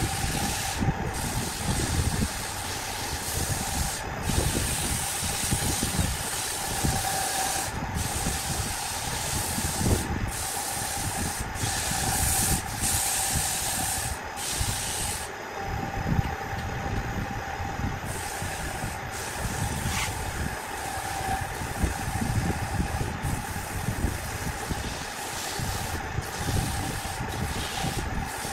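Wood lathe running with sandpaper pressed against the spinning turned wood: an even hiss of sanding over the steady hum of the lathe. The hiss drops away for a couple of seconds about halfway through and has brief gaps elsewhere.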